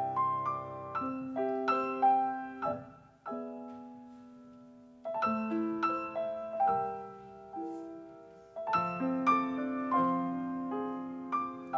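Solo piano music: chords and a melody of struck notes, with one chord left to ring and fade for about two seconds near the middle before the playing resumes.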